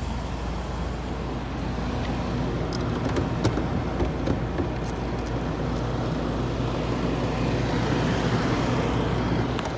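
Range Rover engine idling steadily, with a few faint light clicks.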